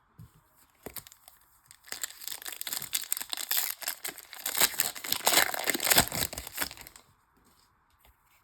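Wrapper of a 2008 Bowman Chrome baseball card pack crinkling and tearing as it is ripped open: a dense crackle starting about two seconds in and lasting about five seconds, after a few light clicks.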